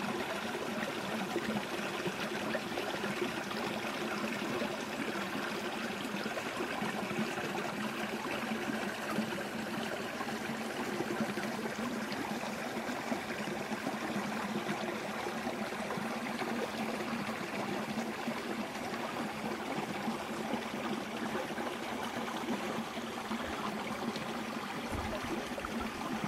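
Forest stream flowing: a steady, unbroken rush of running water.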